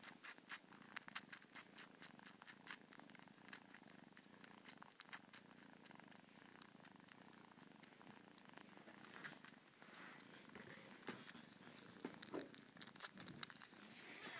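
Kitten purring steadily and faintly while it suckles, with irregular soft clicks over the purr.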